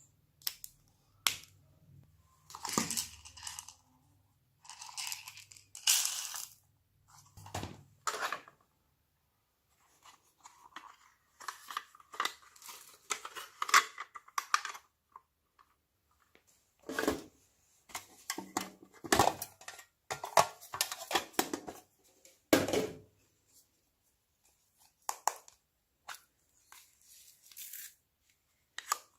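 Hands squishing, stretching and pulling store-bought slime, in irregular bouts of squelching and crackling with sharp clicks and pops.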